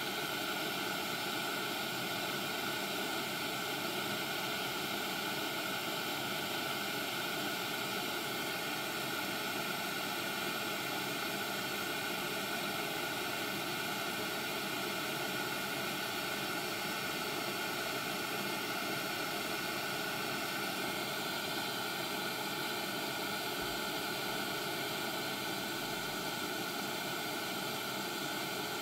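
Steady, unchanging hiss with no distinct events.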